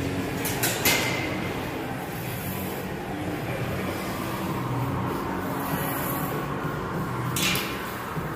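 Steady rumbling background noise of a gym, with a few sharp knocks of weight-machine metal just under a second in and again near the end.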